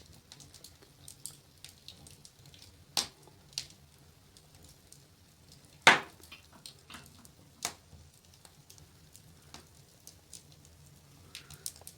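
Wood fire crackling in a fireplace: scattered sharp pops and clicks, the loudest about six seconds in, with smaller ones near three seconds and just before eight.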